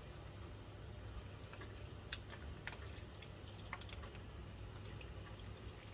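Cream being squeezed from a small soft pack into a frying pan of tomatoes: faint scattered drips and light ticks, starting about one and a half seconds in, over a low steady hum.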